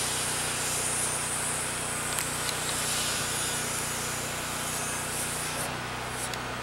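Cordless power tool cutting a hole through steel roof panelling for a plumbing vent pipe: a steady high-pitched hiss that stops about five and a half seconds in. A steady low hum runs underneath.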